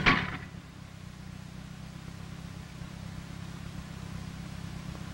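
Allis-Chalmers D14 tractor engine idling steadily, opening with a single sharp knock.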